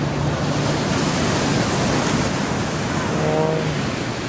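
Steady rushing noise of ocean surf breaking on the beach, with a brief voice about three seconds in.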